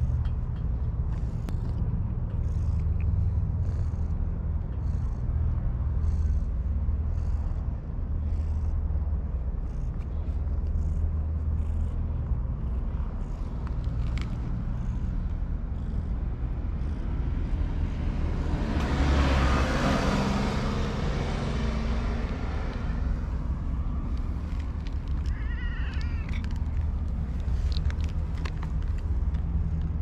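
Black-and-white cat meowing and purring while being stroked, over a steady low rumble. A broad rush of noise swells and fades about two-thirds of the way through.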